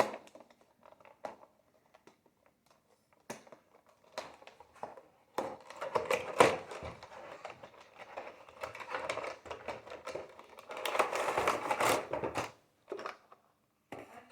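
Rustling, crinkling and light clicks as a plastic model kit's box and bagged parts are handled. It is irregular, sparse at first and busiest through the middle.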